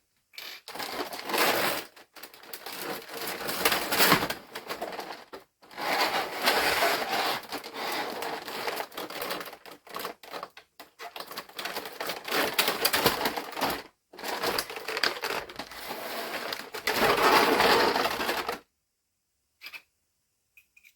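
Action-figure box packaging being handled, rustling and crinkling in long stretches broken by a few abrupt short silences.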